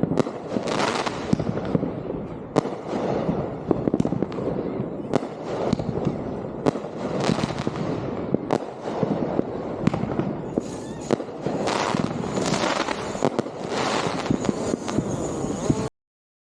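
Fireworks display: a dense barrage of sharp bangs from bursting shells, with crackling bursts mixed in, and the sound cuts off suddenly near the end.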